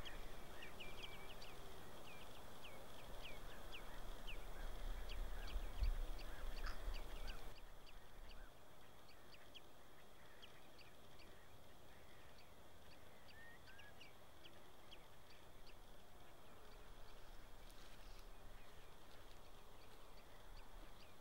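Birds calling: a rapid run of short, high, falling calls that thins out to a few scattered calls about eight seconds in, over a faint steady high whine. A low rumble under the calls drops away at the same point.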